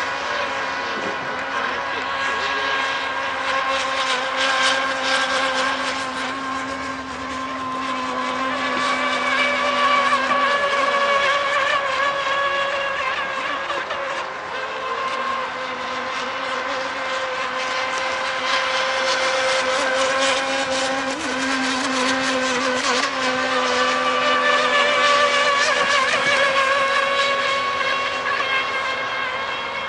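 Radio-controlled racing boat engines running flat out on open water, a steady high-pitched whine that wavers slightly in pitch. It swells louder twice, about a third of the way in and again near the end, as the boats come closer.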